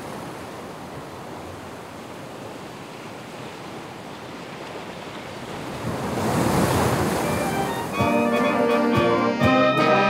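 Surf washing against a rocky shore as a steady rush, one wave surging louder about six seconds in. About eight seconds in, a brass band with trumpets starts playing.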